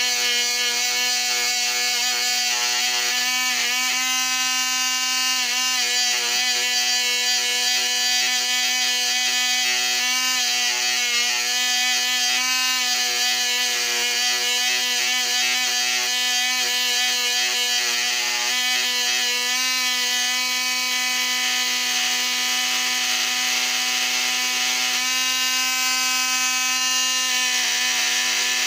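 Lionel 1065 diesel locomotive's electric motor running under power, held in the hand off the track: a steady whine with many overtones that wavers slightly in pitch.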